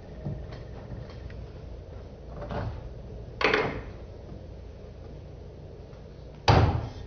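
Two loud, sudden knocks, a little over three seconds in and again near the end, each fading out quickly, with a few fainter knocks between them over a low steady hum.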